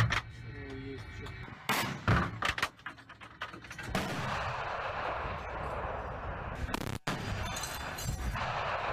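Pantsir-S1 surface-to-air missile system firing: a few sharp bangs in the first three seconds, then a steady rocket roar from about four seconds in, broken off briefly near seven seconds.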